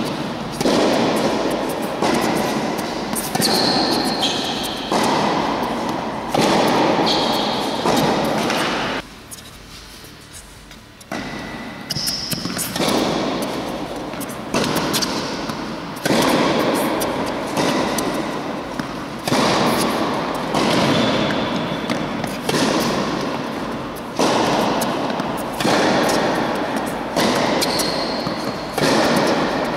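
Tennis rally in an indoor hall: racket strikes and ball bounces about once a second, each hit ringing on in a long echo off the walls, with a short break about nine seconds in before the hitting resumes.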